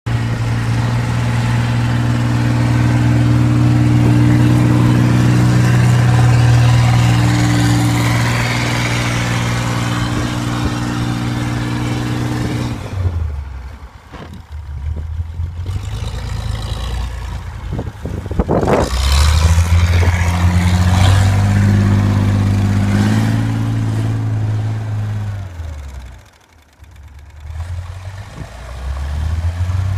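An engine running under changing load, its speed stepping up and down. It drops away almost to idle twice, about halfway through and again near the end, then picks up again.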